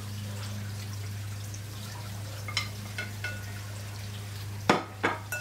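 Metal spoon clinking lightly against a glass mixing bowl as cooked ground sausage is spooned in, then knocking sharply on the bowl twice near the end, over a steady low hiss.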